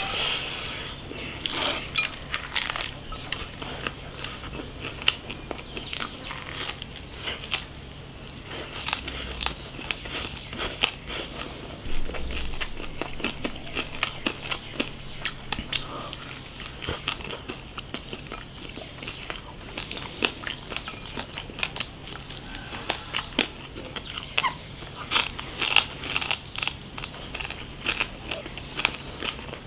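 A person biting and chewing crispy grilled meat close to the microphone: irregular crunches and mouth clicks throughout.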